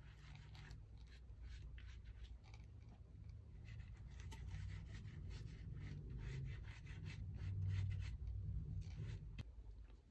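Fingers and a makeup sponge spreading wet liquid latex over a styrofoam mannequin head: faint, irregular rubbing and dabbing, over a steady low hum.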